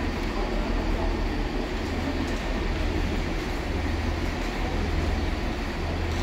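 Diesel multiple unit standing with its engine idling: a steady low drone.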